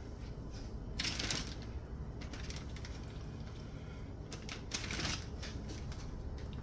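Knife blade scraping and tapping on a wooden cutting board and a plastic zip-top bag crinkling as raw fish chunks are pushed into it. These come in a few short bursts, about a second in, around two and a half seconds, and again at four to five seconds.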